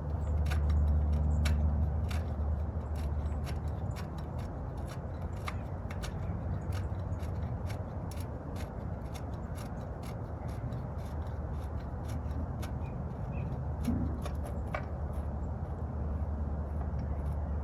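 Irregular light metallic clicks and scrapes from hand work on an e-bike's rear axle hardware with a wrench. A low rumble of the bike being handled comes about half a second in and again near the end.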